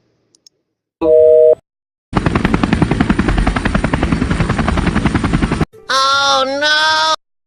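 A string of separate stock sound effects: a short, loud two-tone electronic beep, then a fast, steady rattling clatter lasting a few seconds, then a brief pitched tone with a dip in pitch midway. Each cuts off abruptly into silence.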